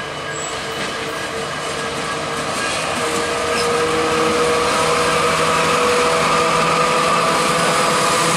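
GO Transit MP40PH-3 diesel locomotives passing close by, engines running and wheels rolling on the rails, with a steady hum. It grows louder over the first few seconds as the locomotives draw level, then holds steady.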